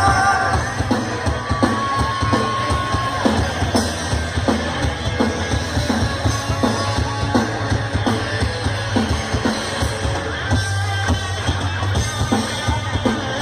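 Rock band playing live in an instrumental passage with no vocals: a steady drum-kit beat over bass and electric guitar, with a held guitar note about two seconds in.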